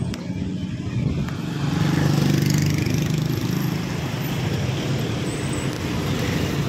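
Motor vehicle engine and road noise: a steady low engine rumble that swells about two seconds in, as a vehicle passes or speeds up, then settles.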